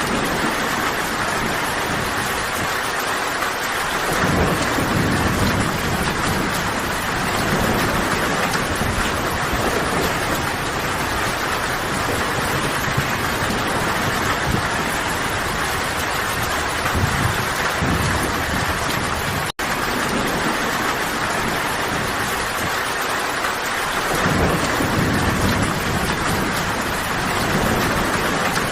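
Steady heavy rain with low rolls of thunder swelling about four seconds in and again near the end. The sound cuts out for an instant just past the middle.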